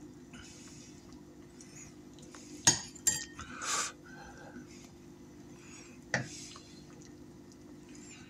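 A serving spoon clinking and scraping against a slow cooker's crock while pot roast is dished out: a sharp clink a little under three seconds in, another just after it with a brief scrape, and one more clink about six seconds in.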